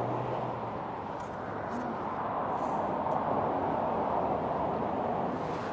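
Steady wash of street traffic noise from a busy multi-lane road, with no single passing vehicle standing out.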